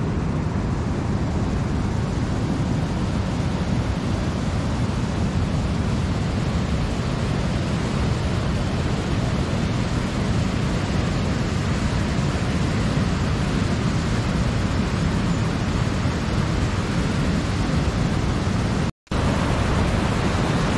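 Steady rushing roar of a waterfall and rapids, heavy in the low end, with a split-second dropout near the end.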